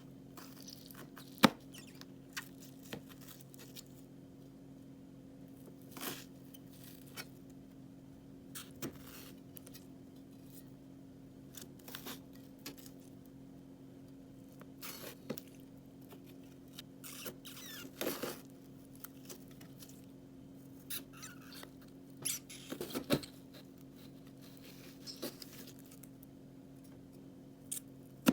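Crunchy (shakishaki) slime being handled, giving scattered crisp crackles and clicks, with one sharp click about a second and a half in. A steady low hum sits underneath.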